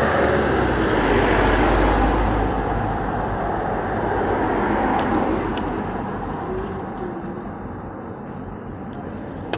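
Rushing street noise of road traffic, heard on a moving skater's action camera. It is loudest with a deep rumble in the first few seconds, then slowly fades.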